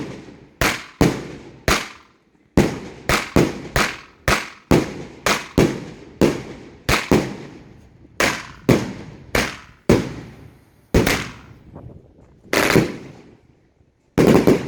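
Squad Commander 16-shot firework cake firing in daylight: a rapid, uneven string of sharp launch thumps and reports, about two or three a second, with a last loud bang near the end.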